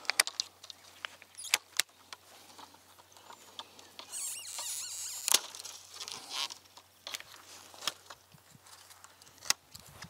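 Pruners cutting lower branches off an apple tree: scattered sharp snips, with a rustle of twigs and leaves about four seconds in.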